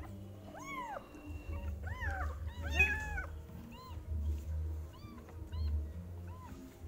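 Young kittens mewing while being bottle-fed milk: short, high-pitched mews that rise and fall, about one a second, with several bunched together about three seconds in.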